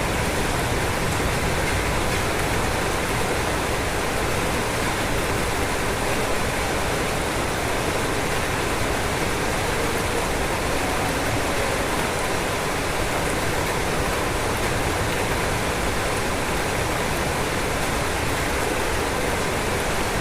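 Rain falling steadily on a roof: a constant, even hiss that does not change.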